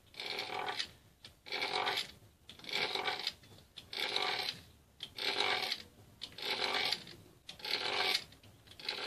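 Fluted pastry wheel rolled across a sheet of dough on a marble counter, cutting it into strips: about eight even strokes, roughly one a second.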